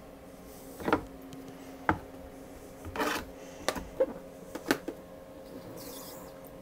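Sharp knocks and clatters of wet darkroom gear being handled, with a rubbing scrape as a squeegee is drawn over a wet photographic print.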